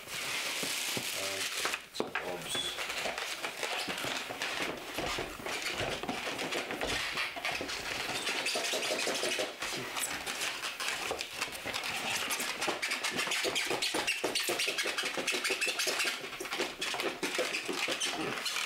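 Packaging being handled and torn open: continuous rustling and crinkling of a padded envelope and cardboard box, with many small scrapes and knocks as an aquarium air pump is pulled out of its foam packing.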